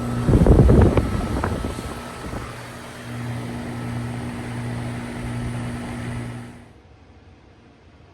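Goodman GSH13 heat pump outdoor unit running in heat mode with a steady hum. A loud rushing burst comes about half a second in, and the running sound drops away sharply near the end.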